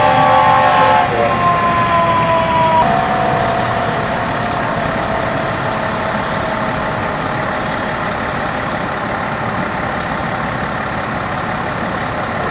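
Fire engine siren winding down: a slowly falling wail that fades out about halfway through, over a steady loud noise.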